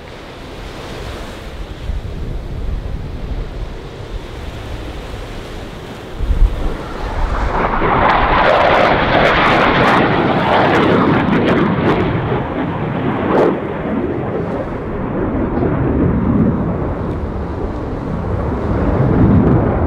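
Jet noise from a Blue Angels F/A-18 Super Hornet, whose twin engines grow louder as it approaches low. About six seconds in, the sound jumps to a loud roar with crackling as the jet passes close and pulls up into a climb, and the roar carries on to the end.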